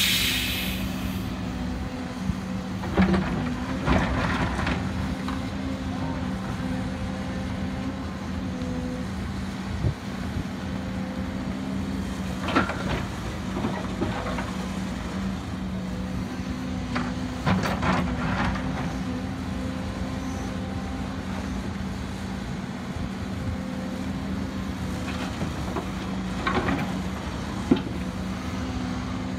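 Hidromek HMK230 H4 excavator running steadily with a constant engine and hydraulic drone while it loads a dump truck. Several times, rocky soil and stones tip from the bucket and clatter into the truck's steel bed.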